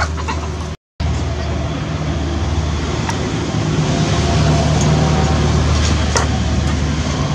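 A steady low engine drone, like a small motor running without change, with a short total drop-out about a second in.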